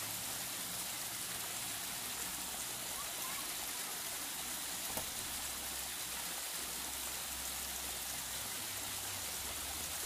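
Small waterfall at medium flow, splashing down a granite rock face: a steady, even rush of falling water.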